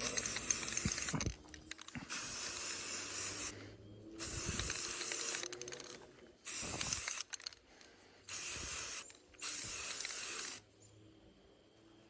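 Aerosol spray paint can sprayed in about six short hissing bursts, each roughly a second long, as a light dusting coat of flat earth brown is laid on a rifle; the spraying stops near the end.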